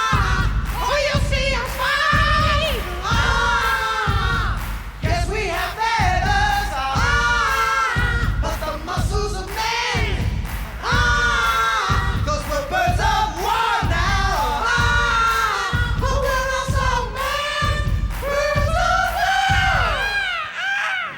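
Wrestling entrance song: a sung vocal melody over a steady heavy beat. The beat drops out near the end, leaving the singing alone.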